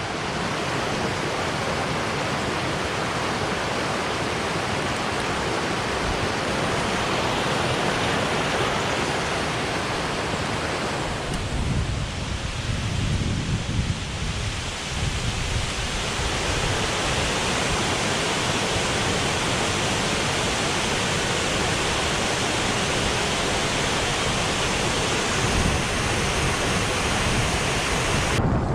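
Steady rush of a rain-swollen beck or waterfall running full after heavy rain. For a few seconds around the middle the sound turns deeper and more rumbling.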